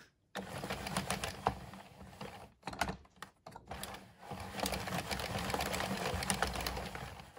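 22-needle circular knitting machine clattering as it is turned, its plastic needles clicking round the track while knitting a round. It comes in three spells, with short breaks about two and a half and four seconds in.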